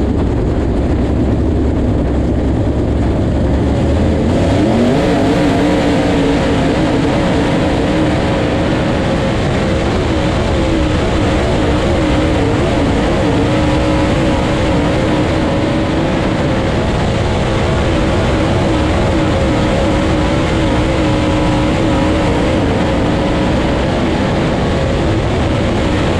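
Dirt late model race car's V8 engine heard from inside the cockpit: rough and low at first, then revving up about four or five seconds in and holding high revs that waver slightly as the car laps the dirt track.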